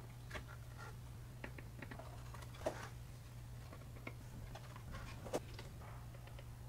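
Faint, scattered light clicks and taps of small 3D-printed plastic parts being handled and pressed into a plastic car body shell, over a steady low hum. There is a sharper click about midway and another near the end.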